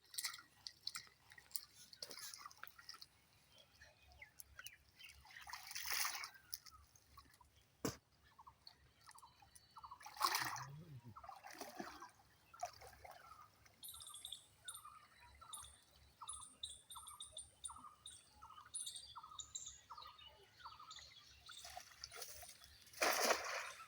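Pond-side outdoor sounds: a bird calling over and over, about one and a half calls a second, from about a third of the way in, with scattered drips and small splashes of water.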